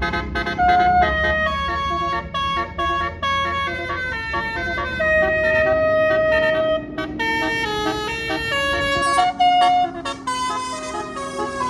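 Telolet Basuri multi-tone bus air horn playing a melody, note after note, with a long held note about halfway through, over a low rumble.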